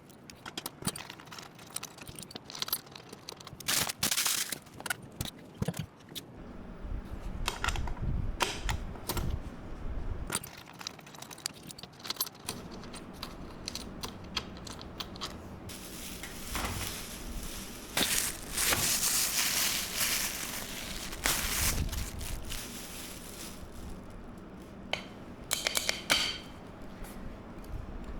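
Gaming chair parts being handled during assembly of the armrests to the seat base: scattered clinks, knocks and rattles of metal hardware, with a few seconds of denser rustling and scraping past the middle and a quick run of clicks near the end.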